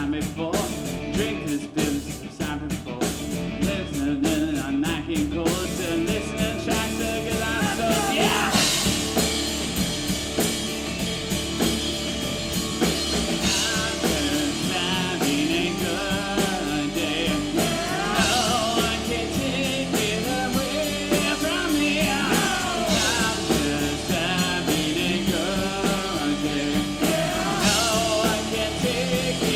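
Live rock band playing, with drums and a singing voice coming in about eight seconds in.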